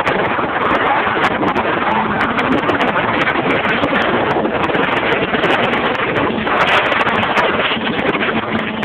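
Wind rushing and buffeting over a phone microphone, with crackles, above the steady running of a motorboat.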